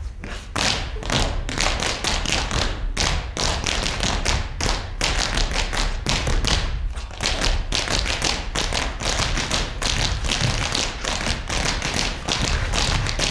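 Dancers' feet stepping, stamping and landing on a stage floor: a dense, irregular run of thuds and taps, several to the second.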